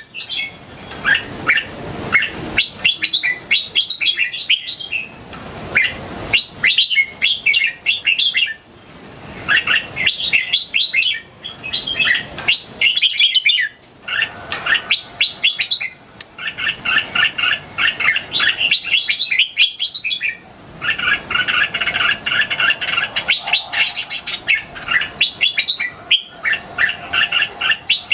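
Young red-whiskered bulbul singing: short, bubbly chattering phrases one after another, with a few longer runs of rapid notes past the middle.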